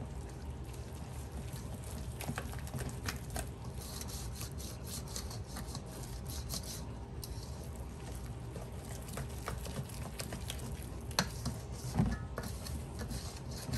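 A whisk stirring thick cake batter in a mixing bowl, with a steady run of fine scraping and clicking against the bowl. A couple of sharper knocks come near the end.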